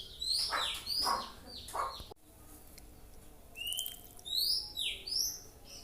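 Songbird calls: a quick series of falling calls that break off abruptly about two seconds in, then after a short gap a few sharp, high whistled notes that rise and then fall.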